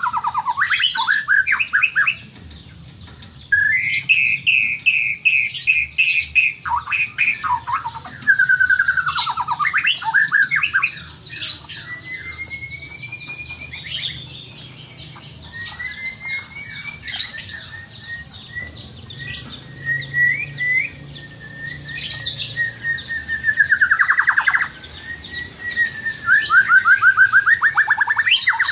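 A songbird singing in repeated phrases: rapid trills and whistled notes, some sliding down in pitch and one rising, broken by sharp high chips and short pauses.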